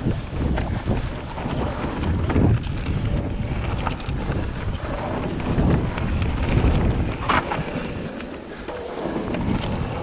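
Wind buffeting the camera microphone as a mountain bike rolls fast down a loose, rocky trail. Under it run tyre noise on gravel and scattered rattles and knocks from the bike.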